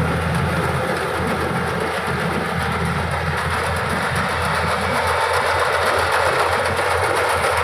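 Yanmar AW70GV combine harvester working, its diesel engine and cutting and threshing machinery making a loud, steady mechanical clatter with a rapid even pulse underneath.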